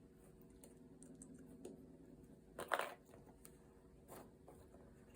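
Faint handling sounds of weaving a potholder loop through the loom's warp: light clicks and rustles, with one short louder scrape about two and a half seconds in.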